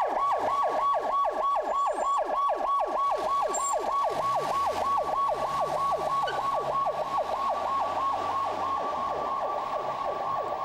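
Ambulance siren wailing in a rapid electronic yelp: each cry jumps up and falls quickly in pitch, about four a second, steady throughout.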